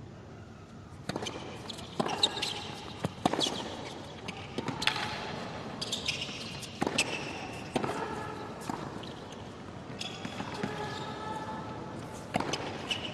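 Tennis rally on a hard court: tennis balls struck by rackets and bouncing, a string of sharp hits about once a second.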